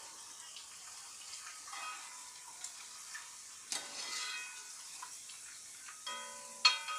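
Garlic cloves frying in hot oil with a faint, even sizzle, while a spoon scooping them out gives a few light clinks against the pan.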